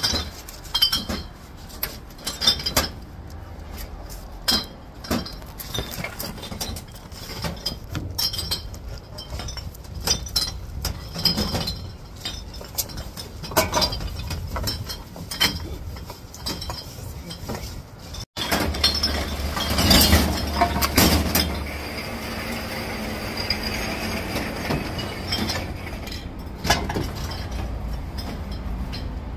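Empty aluminium drink cans and plastic bottles clinking and clattering against each other and the plastic bins as they are tipped out of bags and sorted by hand, in irregular knocks throughout. A steady low background noise sits under the clinks in the second half.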